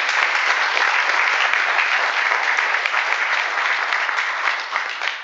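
Audience applauding at the end of a talk, dying away near the end.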